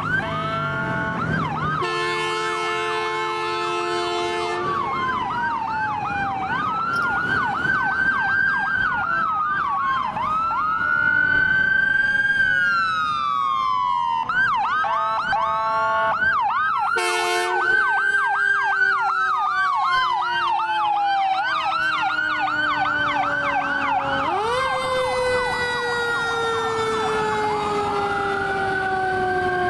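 Fire engine and rescue sirens sounding together, switching between a slow rising-and-falling wail and a fast yelp, with a low siren tone falling slowly beneath them and winding back up about 24 seconds in. A long air-horn blast comes about two seconds in and a short one about 17 seconds in.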